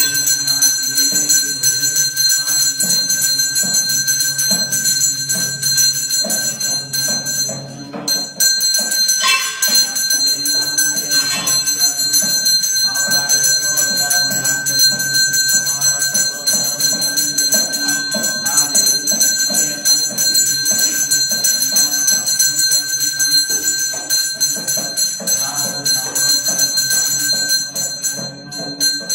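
Temple bell ringing continuously during an aarti lamp offering, with a steady rhythmic beat underneath.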